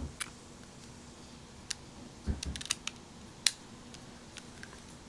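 A few small, sharp clicks and light taps from things being handled on a table, with a soft low bump about two seconds in and the loudest click a little over three seconds in.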